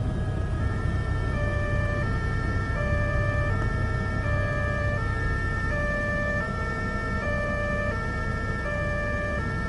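Two-tone emergency-vehicle siren, switching back and forth between a high and a low note about every three quarters of a second, over a steady low vehicle rumble.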